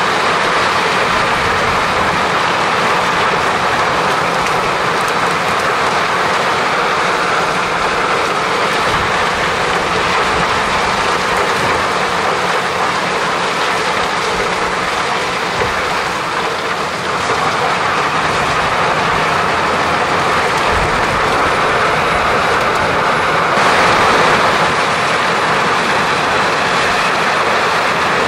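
Heavy machinery running continuously: a loud, dense, steady noise that dips briefly a little past halfway and grows fuller and louder a few seconds later.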